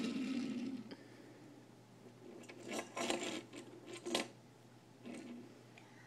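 Small toy cars being pushed, picked up and set down on a wooden tabletop: a cluster of light clicks and scrapes between about two and four seconds in, the sharpest click near the end of that cluster. A voice is heard briefly at the very start.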